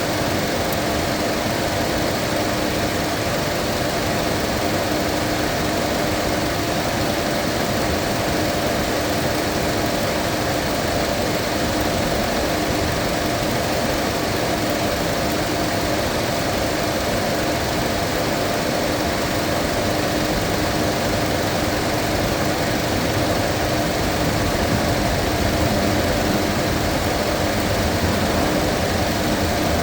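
Mazda 2.5-litre engine idling steadily at operating heat while air is bled out of the cooling system.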